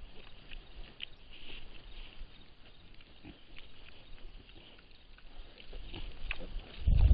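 Wild pigs, a sow with her piglets, foraging: faint scattered short calls and small clicks, with a low rumble building near the end.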